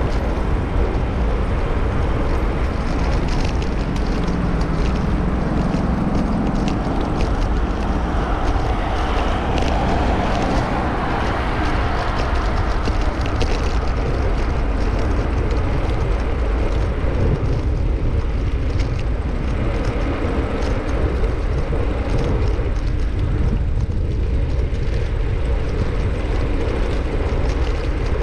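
Steady wind rumble on a bicycle-mounted GoPro Hero8's microphone, mixed with passing road traffic and many small knocks from the bike jolting over the road.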